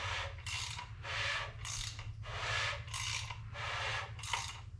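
Ratchet clicking in repeated strokes, about two a second, as it turns the crankshaft of a 5.3 L LS V8 block; the crank spins fairly easily in its freshly torqued main bearings.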